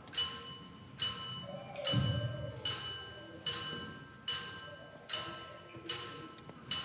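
A bell-like chime struck at a steady pace, about one strike every 0.8 seconds, each ringing out and fading before the next: the twelve strokes of a clock striking midnight. Nine of them fall within these seconds.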